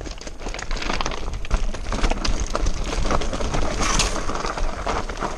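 Mountain bike clattering and scraping over loose rock on a steep descent, ending in a fall of bike and rider onto the stones: a dense, continuous rattle of knocks, louder from about a second in.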